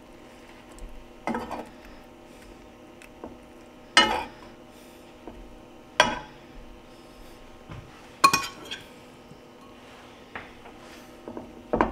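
Metal spoon clinking against a nonstick frying pan as shredded chicken is spooned onto sandwiches: a handful of sharp clinks a couple of seconds apart, the loudest about 4, 6 and 8 seconds in.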